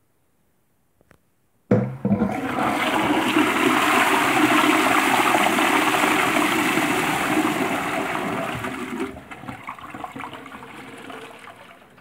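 A faint click about a second in, then a Victorian Twyfords Unitas pedestal toilet flushes: a sudden rush of water, steady for about seven seconds, then dying away to a trickle.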